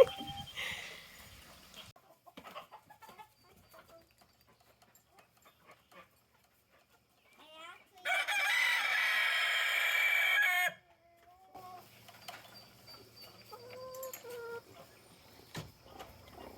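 A rooster crows once, loud and about two and a half seconds long, starting around the middle. Before and after it there is faint, scattered clucking of chickens with quiet gaps.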